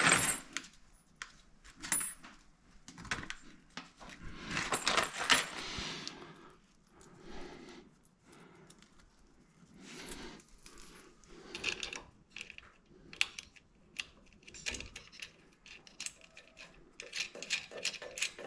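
Small metal nuts and bolts from a fuel-pump mounting kit clinking and rattling as they are handled, with irregular clicks and some rustling.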